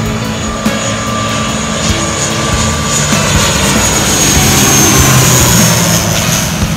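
Airliner passing low overhead on final approach to land, its engine noise swelling to a peak about five seconds in, with a high whine that drops slightly in pitch as it goes by.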